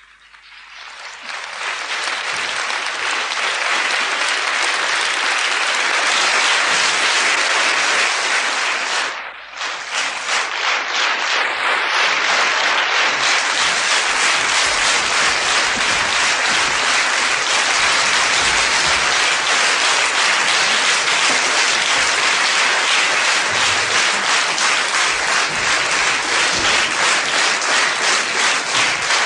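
Theatre audience applauding at the curtain call, swelling up over the first few seconds. After a brief dip about nine seconds in, the clapping settles into a rhythmic beat in unison through the second half.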